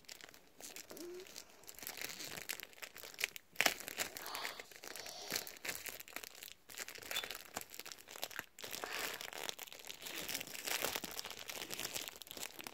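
Plastic wrapping of a sticker album pack crinkling and crackling in irregular bursts as it is handled and pulled at to get it open, with a sharper crackle about three and a half seconds in.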